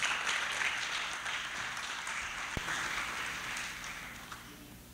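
Audience applauding, the clapping thinning out and dying away toward the end.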